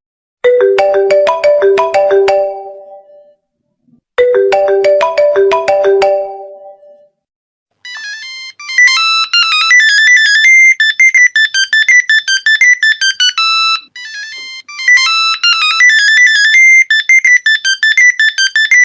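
Two mobile phone ringtones in turn. The first is a short, mellow melody of ringing notes played twice with a gap between. The second is a fast, high-pitched electronic tune of quick notes that loops twice.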